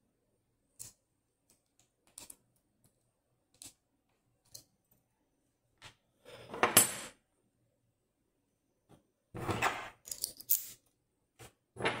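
A Dom Plura lock cylinder being taken apart by hand, with small metal parts handled on a tray: scattered light clicks and taps, then two longer bursts of metal handling about halfway and near the end, the first the loudest.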